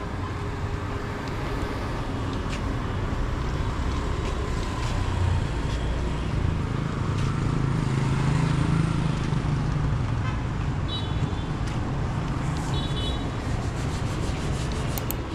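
Street traffic noise with a motorbike engine passing, loudest in the middle. Two brief groups of short high beeps come near the end.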